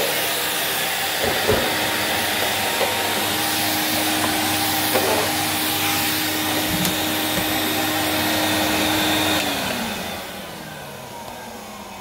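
Numatic NV200 tub vacuum cleaner running steadily, with a floor tool pushed over laminate and a few light knocks. About nine and a half seconds in, the motor winds down, its hum falling in pitch as the sound fades.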